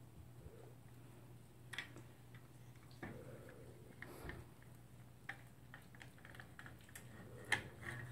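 Small dog eating breakfast from a bowl: irregular light clicks and crunches of food and teeth against the dish, with a sharper click about seven and a half seconds in.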